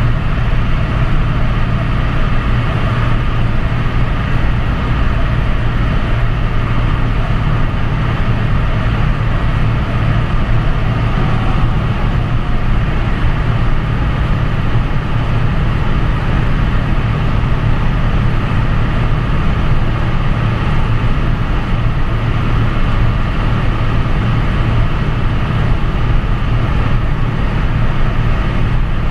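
Wartburg 1.3's VW-built 1.3-litre four-cylinder engine droning steadily at motorway cruising speed, heard inside the cabin together with road and wind noise.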